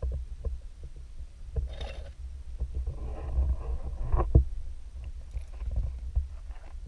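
Underwater sound heard through a GoPro's waterproof housing: a low, muffled rumble with scattered clicks and knocks. A rustling scrape comes near two seconds and again from about three seconds, and one sharp knock just after four seconds, as the housing is jostled against seaweed and the bottom.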